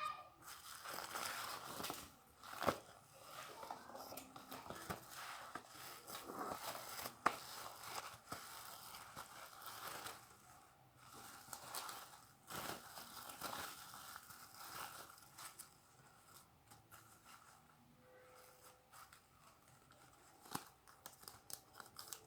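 Parcel packaging being torn open and crinkled by hand: a continuous rustle with many sharp crackles and clicks. The handling becomes quieter in the last several seconds.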